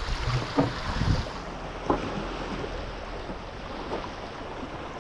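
Wind buffeting the microphone over surf washing on a rocky shore, gustier in the first second, with a few short knocks.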